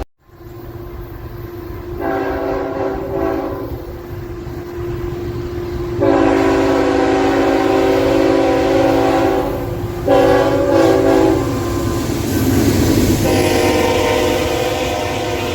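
Locomotive multi-chime air horn sounding four blasts, long, long, short, long, as a chord of several steady notes, over the rumble of a passing train. The pattern is that of a grade-crossing signal.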